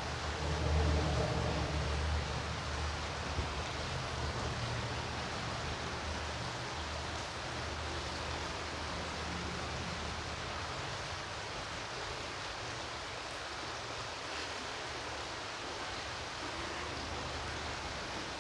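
A stream running over rocks: a steady, even rush of water, with a low rumble underneath that fades about halfway through.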